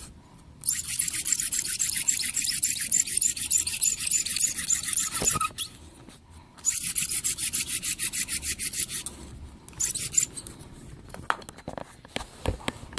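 Mullein spindle of a hand drill twirled between the palms in a cedar fireboard's notch, the wood rubbing with a rapid, raspy squeak in two long bouts with a short break between them. It is friction heating the board to build hot dust toward an ember.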